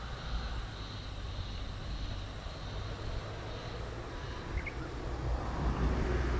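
A faint, high-pitched, wavering insect call, pulsing steadily, which is taken for the year's first cicada. It fades out about four seconds in. A low rumble runs underneath, and a short high chirp comes near the end.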